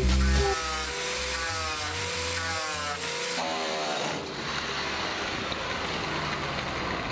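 Electric angle grinder with a sanding disc grinding rust off the steel rear wheel-well of a 2007 Chevy Silverado pickup. Its whine wavers up and down with the pressure, and a little past halfway through the sound turns to a rougher, even noise.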